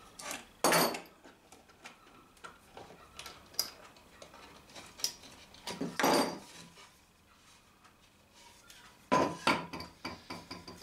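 Small metal clamps being unscrewed and put down on a wooden workbench: a few sharp metal clanks and knocks, with light clicks and handling between them.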